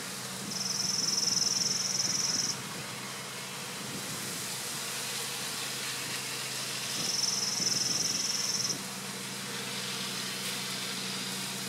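Honey bees humming steadily over an open hive box. Twice a high insect trill cuts in, each lasting about two seconds.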